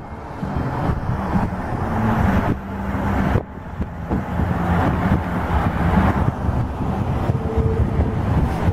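Road and engine noise from a car driving, with wind rushing unevenly over the microphone.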